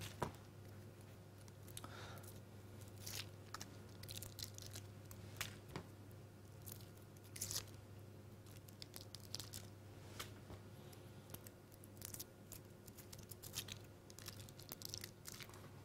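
Foil wrappers being torn and peeled off Laughing Cow soft cheese wedges: faint, irregular crinkling and tearing throughout, over a steady low hum.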